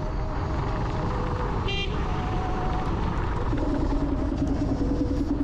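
Steady wind and road noise from a Dualtron Thunder 2 electric scooter riding along, with a faint motor whine that shifts in pitch. A short horn toot sounds a little under two seconds in.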